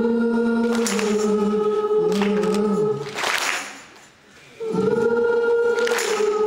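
Live band with voices holding long, steady choir-like notes, in two stretches of about three seconds with a short drop between them. A brief crash marks each break.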